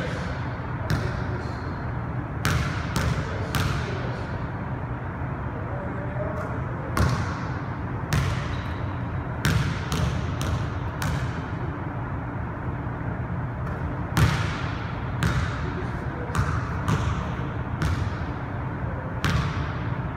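Basketball bouncing on a hardwood gym floor, in irregular single bounces and short runs of dribbles, each one echoing through the gym.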